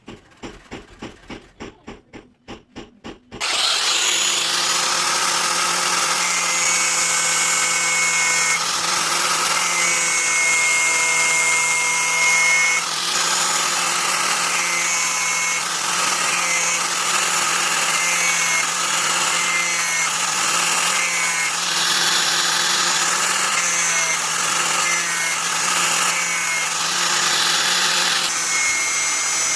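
Rhythmic scraping strokes on metal, about three a second. Then, about three and a half seconds in, an electric power tool starts and runs steadily with a high whine, working the knife blade.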